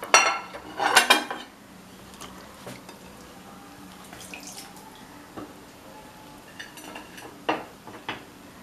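Hands rinsing tamarind pulp in a bowl of water: two splashes in the first second or so, then quieter wet handling as handfuls are squeezed out and laid on a plate, with a couple of light clinks of crockery near the end.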